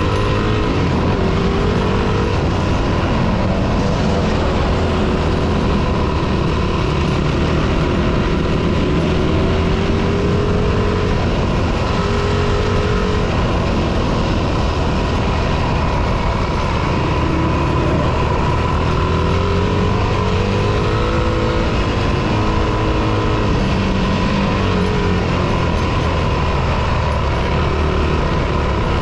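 Dirt bike engine running under way, heard close up from the bike carrying the camera, its pitch rising and falling again and again with the throttle over a constant rumble and rushing noise.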